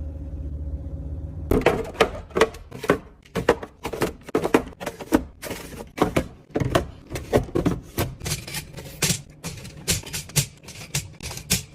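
A steady low hum, then from about a second and a half in, a quick, irregular run of clicks, knocks and light clatter: containers and household items being handled, shifted and set down while a refrigerator is cleaned and organised.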